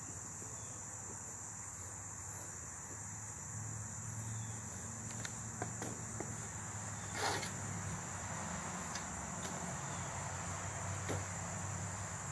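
An agitated honeybee colony buzzing in a fluctuating low hum, over a steady high-pitched whine. A few short knocks come through, the loudest about seven seconds in. The colony is defensive.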